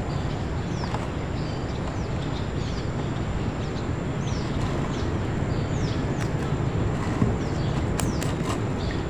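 Steady wind rumble on the microphone with a small bird giving short, high, falling chirps about once a second, and a few sharp clicks near the end.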